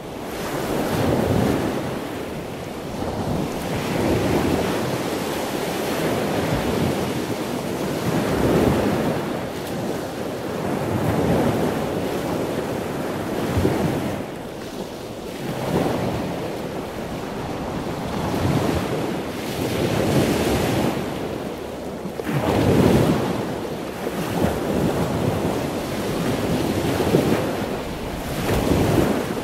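Wind buffeting the microphone over the rush of choppy sea, swelling and easing every few seconds.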